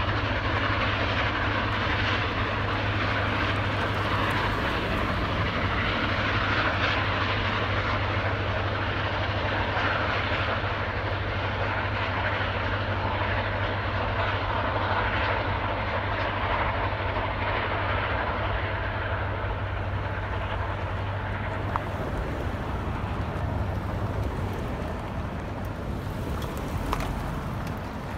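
Union Pacific Big Boy No. 4014 steam locomotive working at speed together with a second steam locomotive, a steady heavy roar of exhaust and running gear. A steady low hum stops about three-quarters of the way through, and the noise fades near the end as the train pulls away.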